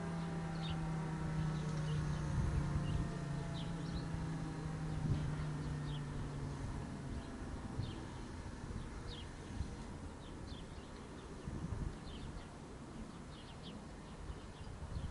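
Federal Signal Thunderbolt 1003 outdoor warning siren winding down at the end of its test, its tone slowly falling in pitch and fading out about seven seconds in. Birds chirp briefly throughout, over a low rumble.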